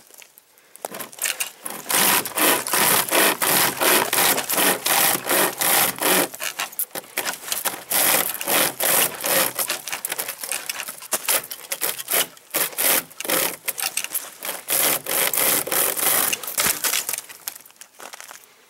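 Homemade pocket chainsaw, a length of saw chain pulled back and forth by webbing handles, cutting through a dry, dead log with rapid rasping strokes and a few short breaks. The strokes stop near the end as the cut goes through.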